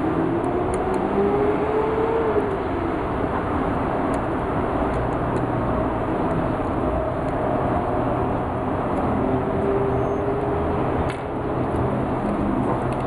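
Steady rumble of motor vehicle noise, with engine pitch slowly rising and falling, and a few faint ticks over it.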